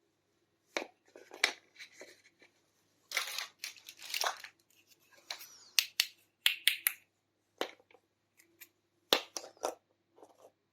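Small plastic toy kitchen pieces being handled: a series of sharp clicks and taps mixed with short rustles and scrapes, the longest rustling stretch a few seconds in.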